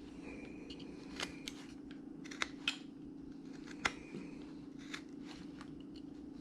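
Short, sharp cuts of a hand carving blade slicing into wood, several separate cuts spaced about a second apart, over a steady low hum.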